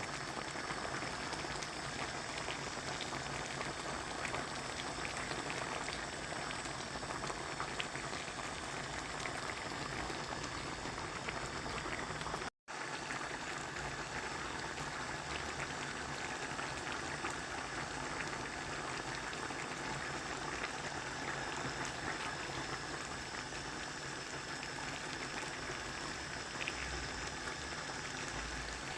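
Rain falling steadily, a dense patter of many small drops. The sound cuts out for a split second about twelve seconds in.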